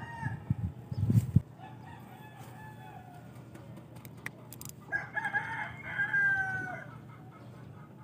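A rooster crowing: a faint crow about two seconds in, then a longer, louder crow about five seconds in that falls in pitch at the end. Low thumps of handling noise in the first second or so as the rod is cast.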